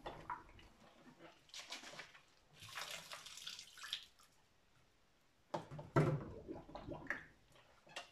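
Water splashing and sloshing as plastic PET bottles are washed by hand in a tub of soapy water, with water pouring out of an upturned bottle, in irregular bursts; the loudest splash comes about six seconds in. This is the bottle cleaning before bottling home-brewed beer.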